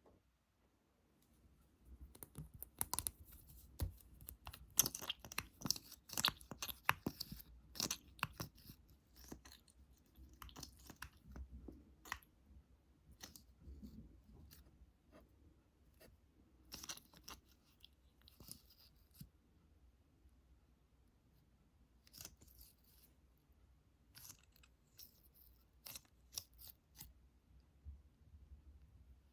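Close-up ASMR tapping and scratching: quick, crisp clicks and scrapes of fingers on a hard surface, densest in the first several seconds, then sparser.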